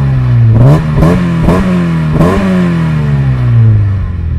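Mazda MX-5 Miata's four-cylinder engine revved while parked, heard at the exhaust: four quick throttle blips in the first two and a half seconds, each followed by the revs dropping, then the revs slide back down to idle.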